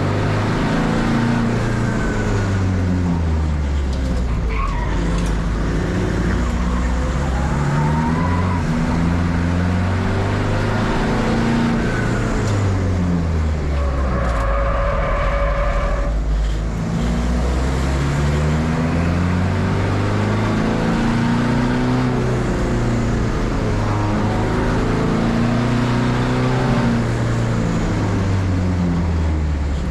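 Race car engine working hard on the circuit, its pitch climbing and dropping back again and again as it accelerates, shifts gears and slows for corners. A high steady squeal, likely the tyres, lasts about two seconds near the middle.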